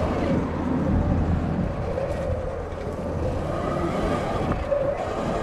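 Sur Ron electric dirt bike riding a dirt trail on its belt drive: the electric motor's whine rises and falls in pitch over a steady rumble of tyres and wind on the microphone.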